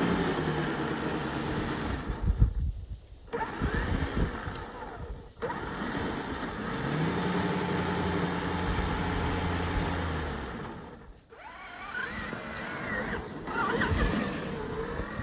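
Motor of a Traxxas TRX-4 Bronco radio-controlled truck whining as it drives, its pitch rising, holding steady and falling with the throttle. There are several abrupt cuts between short clips.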